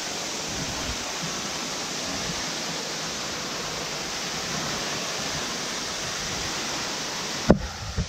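Steady rushing roar of a tall waterfall's falling water. Near the end comes a single sharp knock, and the roar suddenly drops much quieter.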